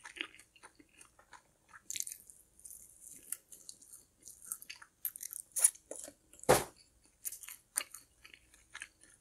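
Close-up eating of a spicy chicken wing: biting and chewing with scattered crisp crunches and mouth clicks, the loudest crunch about six and a half seconds in.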